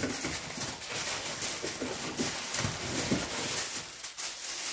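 A cardboard parts box being opened and a clear plastic bag crinkling as a part is lifted out of it: irregular rustling and scraping of cardboard and plastic.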